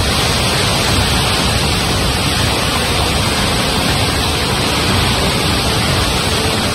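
Loud, steady rushing roar of a flash-flooded river torrent in spate.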